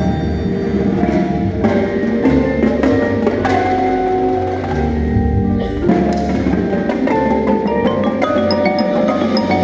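A high school indoor percussion ensemble is playing, with xylophone and glockenspiel notes heard close up over sustained low notes. Bright, high glockenspiel pings stand out near the end.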